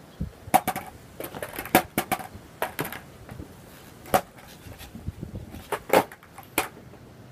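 Skateboard being popped on the spot on asphalt: the tail snapping down and the wheels knocking back onto the ground in a string of sharp wooden clacks, about four of them loud.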